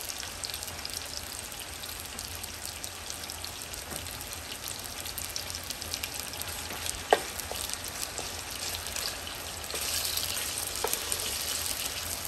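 Boneless, skinless chicken thighs browning in hot cooking oil over medium-high heat: a steady sizzle with scattered crackling pops. One sharper pop comes about seven seconds in, and the sizzle grows louder near the end.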